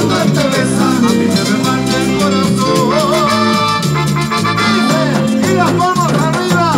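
Live Latin tropical band playing, with a repeating bass line and conga drum, and a man singing into a microphone over it.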